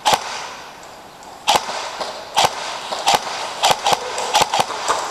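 Airsoft guns firing single shots: about nine sharp cracks at uneven intervals, bunching closer together in the second half.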